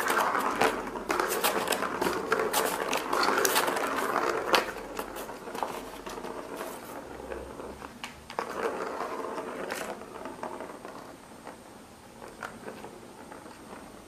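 A plastic ball rolling and rattling around the track of a circular plastic cat track toy as a cat bats it, with sharp clicks of paw and ball on the plastic. It rattles in bursts, strongest in the first few seconds and again about eight seconds in, then dies away.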